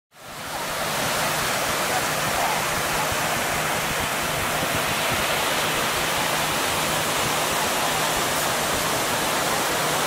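Steady wash of surf on the beach, fading in over the first second.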